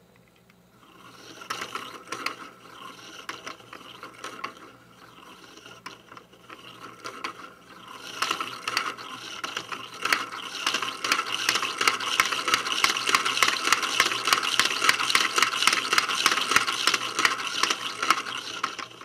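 Hand-cranked 3D-printed plastic gear train, with partial pinions driving a rack back and forth: rapid clicking and clattering of plastic gear teeth. It becomes louder and denser about eight seconds in.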